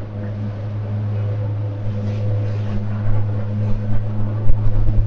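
80 hp outboard motor running at a steady cruising speed, a constant low drone, with wind and water rushing past the hull. A few low thumps come in the last second or so.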